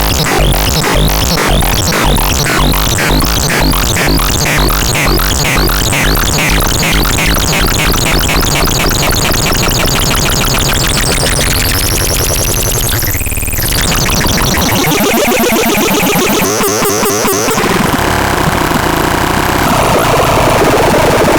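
ADEPAX synthesizer playing electronic sounds. It starts with a fast, evenly repeating pulse over a deep bass. About 12 seconds in comes a sweep that rises high and falls back, followed by warbling tones and a denser, noisy texture near the end.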